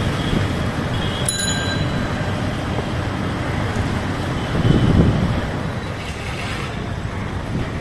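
Road travel noise, a steady rumble of wheels and traffic, with a bicycle-type bell ringing briefly about a second and a half in. The rumble swells louder around five seconds in.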